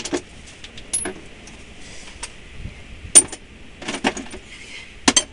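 Scattered sharp metal clinks and knocks from work on a tractor's dual wheel. The loudest is a clink with a brief ring about three seconds in.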